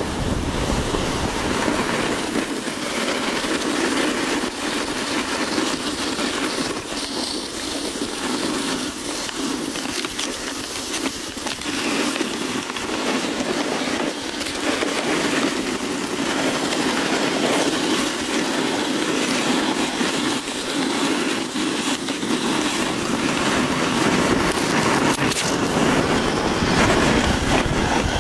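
Steady rushing noise of wind and jacket fabric rubbing over a body-worn camera's microphone.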